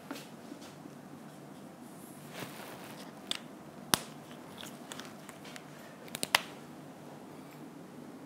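Quiet room tone broken by a few sharp clicks and taps from a whiteboard marker being handled: one about three seconds in, a louder one about four seconds in, and a quick run of three a little after six seconds.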